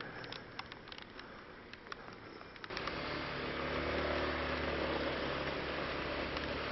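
Big raindrops ticking irregularly on the motorcycle and helmet, then about two and a half seconds in the motorcycle's engine starts and runs steadily at idle.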